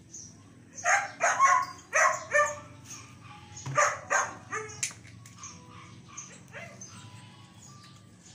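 A dog barking and yelping in short sharp calls, in two quick runs of several calls each over the first five seconds.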